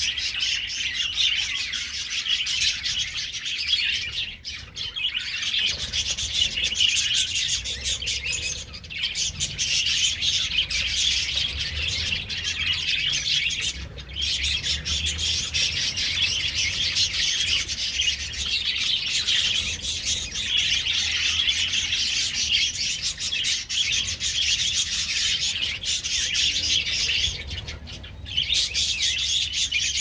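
A colony of budgerigars chattering and chirping together: a dense, unbroken high twittering of many birds at once, dipping briefly a few times.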